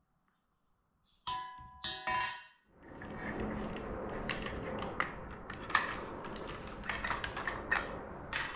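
Two short ringing clanks of a steel tube being set down, then clicks and small metallic rattles of an angle grinder being handled while its disc is changed, over a steady hiss. The grinder motor is not running.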